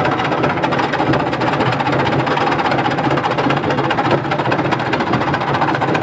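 Burning washing machine running, its motor and drum spinning with a steady mechanical noise.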